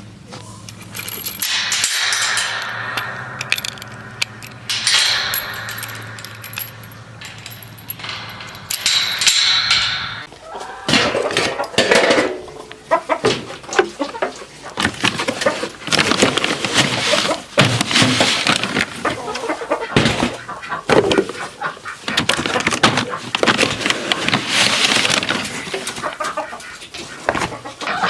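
Chickens clucking amid repeated rattling and clattering, thickest in the second half.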